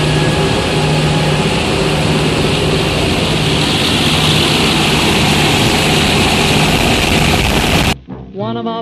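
Steady drone of a B-24 Liberator's four radial engines and propellers in flight, heard inside the bomber with loud wind rush. It cuts off suddenly near the end.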